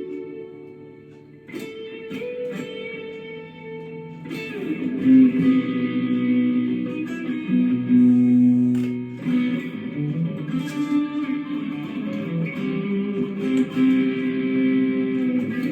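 Gear4Music LA Select strat-style electric guitar with three single-coil pickups being played: picked notes and chords that ring out, with fresh attacks every few seconds.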